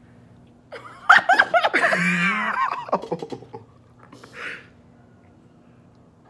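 Laughter bursting out about a second in and lasting about two seconds, rising to a high wavering squeal in the middle, then dying down to a short breathy snicker.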